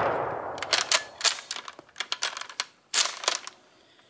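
The fading echo of a 7.7 mm Type 99 Arisaka rifle shot, followed by the bolt being worked: a run of sharp metallic clicks starting about half a second in, and another short cluster about three seconds in.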